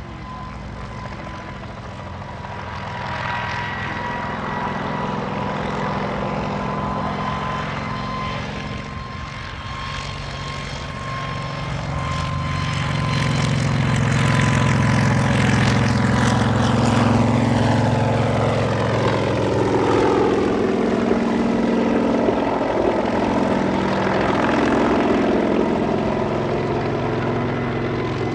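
Kamov Ka-26 helicopter's twin radial piston engines and coaxial rotors running as it lifts off and flies low past. The sound grows louder to a peak about halfway through, then its pitch drops as it goes by.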